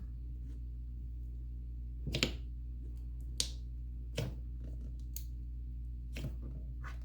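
About six short, sharp clicks and pops at irregular intervals over a steady low hum.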